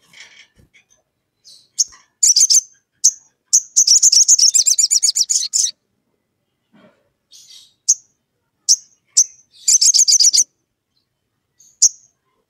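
Olive-backed sunbird calling: sharp, high single chips mixed with fast chattering trills. The longest trill runs about two seconds, a shorter burst comes about ten seconds in, and lone chips fall between them.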